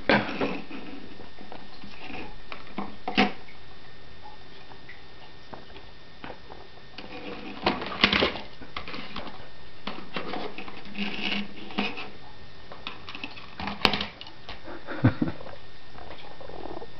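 Irregular taps, clicks and scrapes as a budgerigar pecks at and pushes a metal wristwatch across a wooden shelf while a hand moves the watch. A louder cluster of taps comes about eight seconds in, and a sharp click comes near the end.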